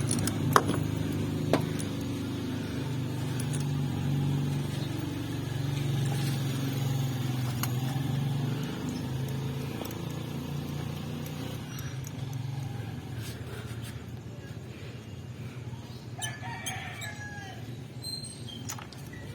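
A rooster crowing near the end, over a steady low engine hum that fades about halfway through. There are two sharp clicks near the start.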